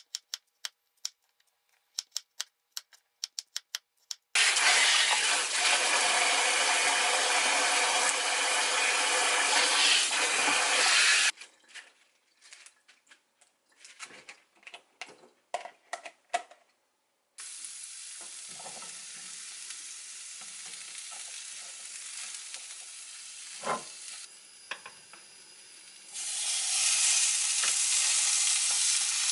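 A quick run of about a dozen knife strokes on a wooden cutting board, slicing garlic, then a loud steady rushing noise, then light rustles and clatters as lettuce is rinsed in a plastic colander. Near the end a beef steak with shiitake mushrooms and garlic starts sizzling loudly in a frying pan, a steady rain-like frying sound.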